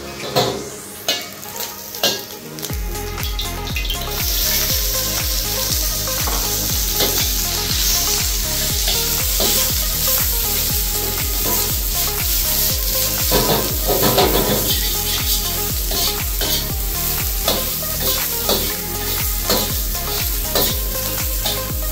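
Egg-and-starch-coated beef pieces sizzling in hot oil in a steel wok, turned with a metal wok ladle that clinks and scrapes against the pan. A few sharp clinks come first, and the steady sizzle sets in about four seconds in.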